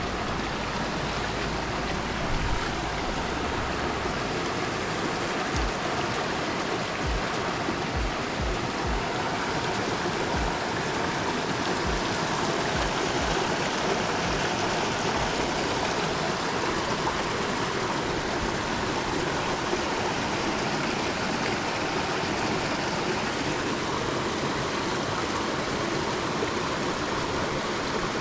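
Small mountain creek rushing steadily over rocks, an even wash of water noise, with a few soft low thumps between about 5 and 15 seconds in.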